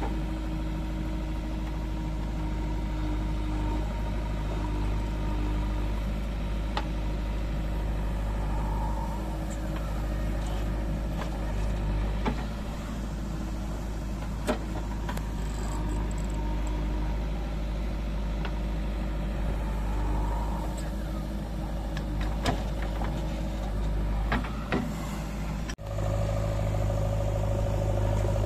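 JCB 3DX backhoe loader's diesel engine running steadily while the backhoe digs soil, with scattered clicks and knocks from the bucket and earth. Near the end the sound cuts to a louder engine running at idle.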